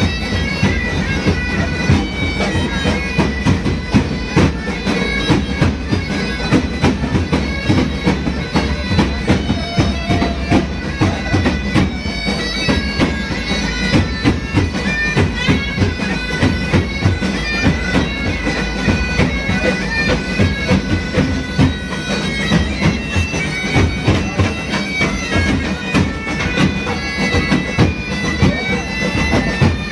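Several bagpipes of a pipe band playing a tune over their steady drone, with a regular beat beneath.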